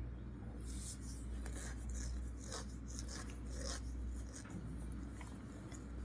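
Greased fingers pressing and smoothing soft biscuit dough into a plastic modak mould: a run of short rubbing, rasping strokes, thinning out after the first few seconds, over a steady low hum.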